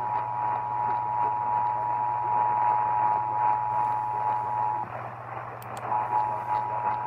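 Emergency Alert System two-tone attention signal (853 Hz and 960 Hz sounding together) coming through an AM radio's speaker over static hiss and a low hum. The tone breaks off for about a second roughly five seconds in, then resumes.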